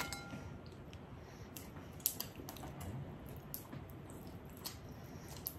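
Steamed crab shell being picked apart by hand: scattered small cracks and clicks, a few sharp snaps spread irregularly, with a short clink right at the start.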